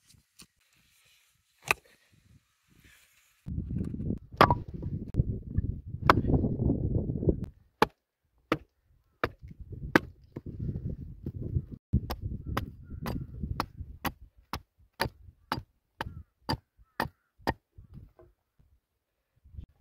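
Hatchet chopping into a short upright log to split it lengthwise. It gives sharp wooden chops, a few spaced ones at first, then a steady run of about two a second that stops near the end. A low rumble sits under the middle stretches.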